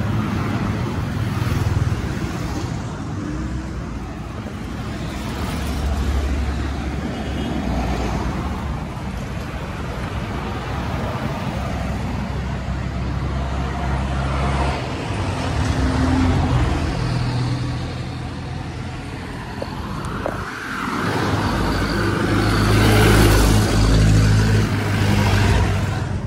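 Road traffic passing close by: cars, jeepneys and motorcycles running in a steady stream of engine and tyre noise. One vehicle passing loudest near the end.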